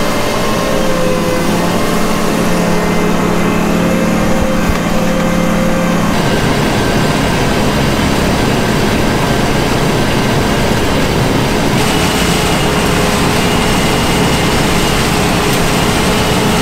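John Deere 9500 combine harvester running under load while harvesting, a loud steady machine drone. Its tone changes about six seconds in, and a higher whine joins about twelve seconds in.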